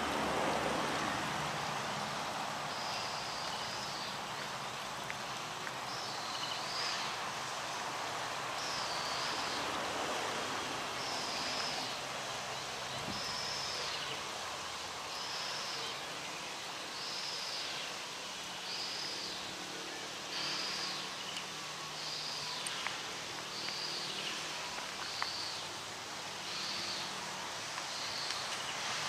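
Narrow-gauge steam locomotive 12A running and passing with its carriages, a steady rushing rumble that swells again near the end as it goes by. A short, high chirp repeats about every one and a half to two seconds.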